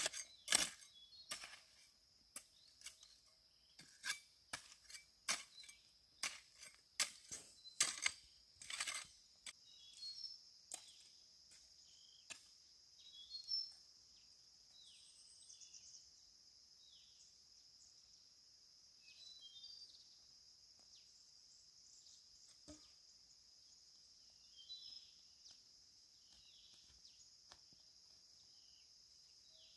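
A run of sharp knocks, about one every half second to a second, through roughly the first nine seconds, then a steady high insect drone with scattered bird chirps.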